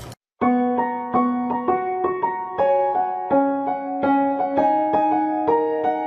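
Background music: a gentle piano or electric-piano melody, notes struck about twice a second, starting after a brief silence.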